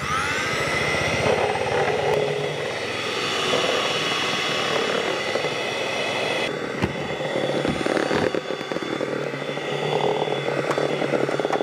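Electric kitchen mixer motor switching on, its whine rising as it spins up, then running steadily; its sound changes about six and a half seconds in.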